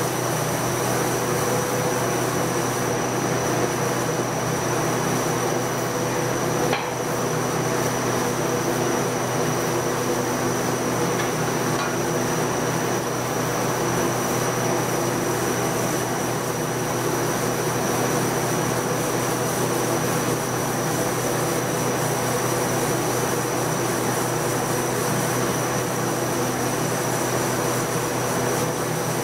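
Sandblasting cabinet running steadily: the hiss of the abrasive blast on glass over a constant hum, etching the glass where the liquid resist does not cover it. A single brief knock about seven seconds in.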